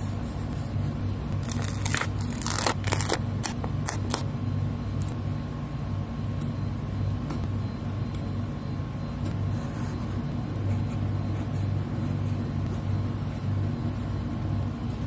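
Paper stickers being peeled and pressed on, giving a cluster of crisp crackles about two seconds in and a few faint ticks later. Under them is a steady low hum.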